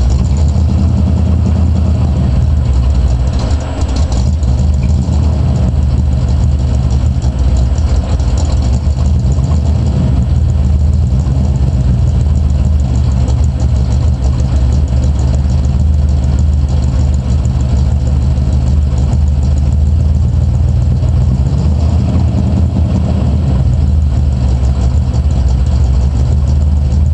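1986 Chevrolet Camaro IROC-Z's small-block V8 idling steadily with a knock from the bottom end, which the owner takes for rod knock.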